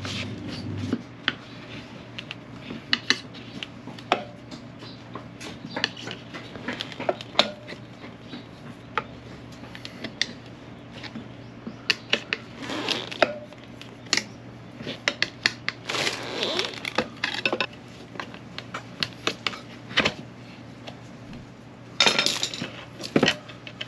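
Metal tyre levers clinking and scraping against the rim of a motorcycle's spoked front wheel as the old tyre is pried off. It is a run of sharp metallic clicks, with a few longer scraping stretches where the levers are worked around the bead.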